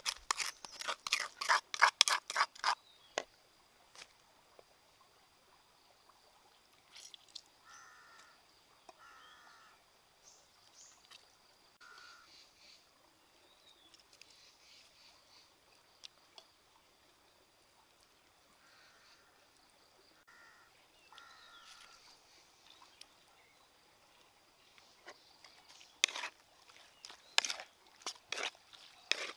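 Crows cawing a few times over quiet open-air background with a faint steady high whine. A run of quick, sharp clattering knocks comes at the start and again near the end.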